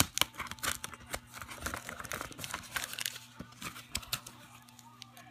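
Packing tape being peeled and taped corrugated cardboard pulled apart by hand: a busy run of small crackles, scrapes and ripping clicks.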